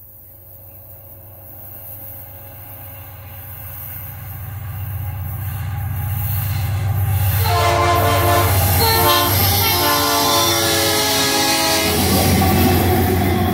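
Diesel freight locomotive approaching, its low engine drone growing steadily louder. About halfway through, its multi-tone air horn sounds a series of blasts for several seconds.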